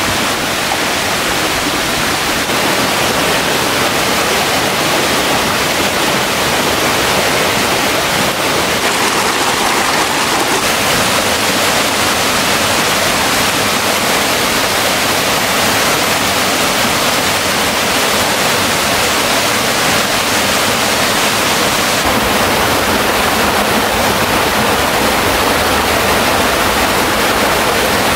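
A waterfall, its water rushing steadily and loudly.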